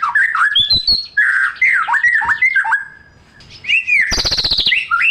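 White-rumped shama (murai batu) in full song: a fast run of clear whistled notes sweeping up and down, broken by a short pause at about three seconds, then a rapid harsh rattle just after four seconds before the whistles start again.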